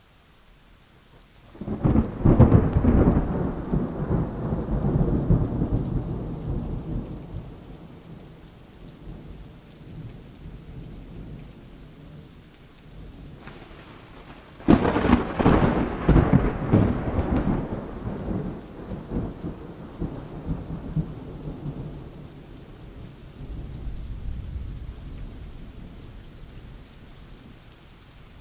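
Thunderstorm with steady rain: a clap of thunder about a second and a half in that rolls and fades over several seconds, then a second, sharper clap about halfway through that rumbles on, with a fainter rumble near the end.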